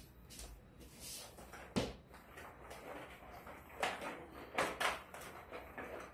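Hard plastic parts of a LuvLap Comfy baby walker being handled and fitted, giving sharp clicks and knocks: one a little under two seconds in, then several more from about four seconds in.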